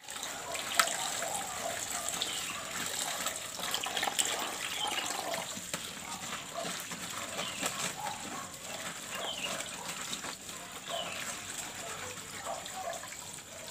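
Water sloshing and splashing as a plastic basket of cut long beans is swished by hand in a basin of water, with a sharp knock about a second in.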